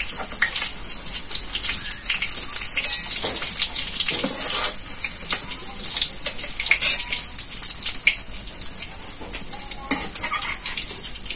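Soya chunks frying in hot oil in a metal wok, a steady sizzle with many small crackles. A metal spatula clicks and scrapes against the wok and a steel bowl as the fried chunks are lifted out.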